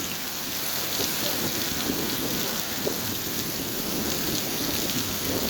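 Heavy rain pouring down onto hard surfaces: a steady, even hiss.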